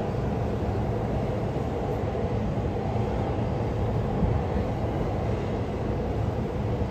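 Electric train running on the rails: a steady low rumble with a faint hum and no sudden sounds.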